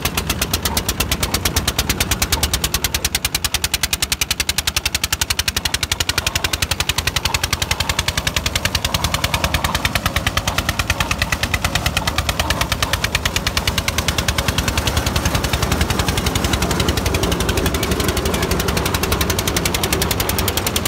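Old single-cylinder Petter diesel engine running under load as it belt-drives a large wheat thresher, its exhaust a rapid, even, sharp beat. It labours slowly and smokes heavily; the owner says it is too small and worn out for the big thresher.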